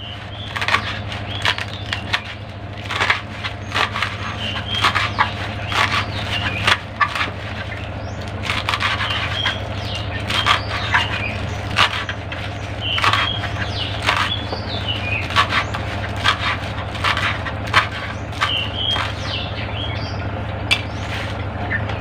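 Kitchen knife chopping fresh papaya leaves on a wooden cutting board: a run of quick, irregular chops, the blade knocking through the leaves into the wood.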